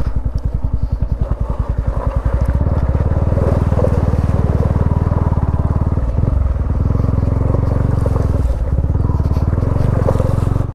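Motorcycle engine running while the bike is ridden slowly over a gravel riverbed, with a steady pulsing low beat; the engine note dips briefly twice in the second half.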